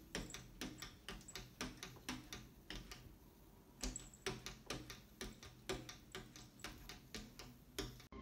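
A cat chattering: rapid clicking at about four to five clicks a second, with a short break about three seconds in, stopping abruptly near the end.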